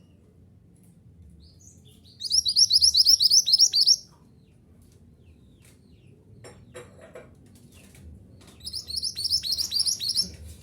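A mantenan gunung songbird singing two quick, high-pitched chattering phrases of rapidly repeated slurred notes, each about two seconds long, one about two seconds in and one near the end. Faint ticks fall between them.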